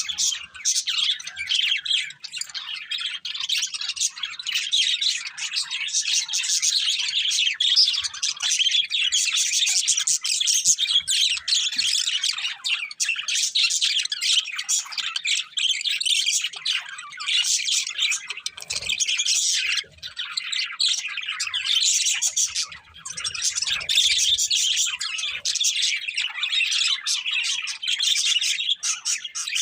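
Budgerigars chattering and warbling in a continuous stream of rapid high chirps.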